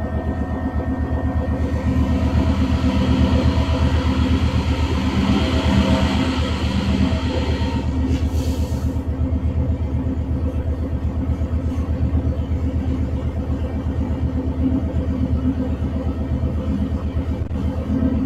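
Class 66 diesel-electric locomotive's two-stroke V12 diesel engine running steadily under power, heard from aboard, with a fast, even throb. A wash of hiss rises over it for several seconds, and a brief hiss comes about eight seconds in.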